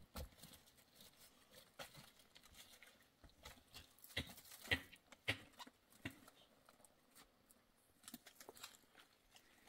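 Faint, scattered footsteps crunching over stony, gravelly ground, with a few louder steps about four to five seconds in.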